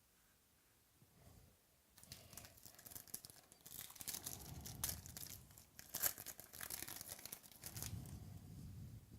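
Foil wrapper of a basketball trading-card pack being torn open and crinkled, a run of crackling rustles starting about two seconds in, with a couple of sharper crackles midway.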